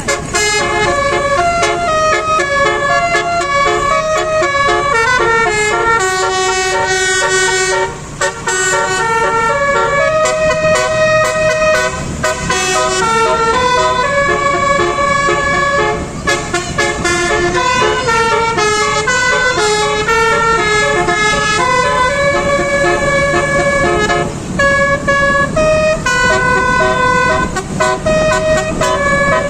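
Indonesian bus telolet horn of the basuri type, a multi-trumpet air horn, playing a long stepped melody note after note, with short breaks about 8, 12, 16 and 24 seconds in.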